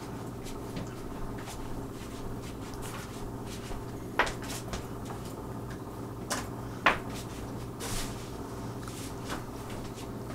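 Scattered sharp knocks and clicks over a steady low hum, the loudest about four and seven seconds in.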